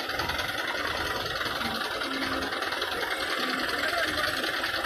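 Heavy diesel engine idling steadily, an even rattling drone with no change in speed.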